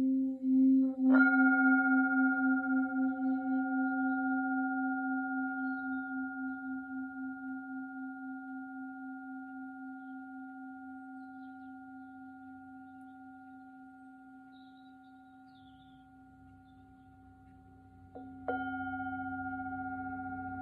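Tibetan singing bowl tuned to C, struck about a second in. Its low tone rings with a slow wobble and fades away over many seconds. It is struck again near the end and rings on.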